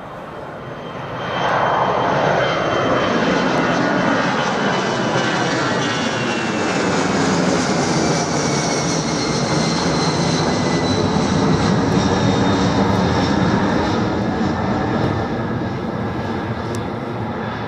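Air Force One, a four-engine Boeing 747-based VC-25A, taking off and passing by. The jet noise swells sharply about a second and a half in and stays loud, with whining engine tones sliding steadily down in pitch as it goes past, then slowly fades near the end.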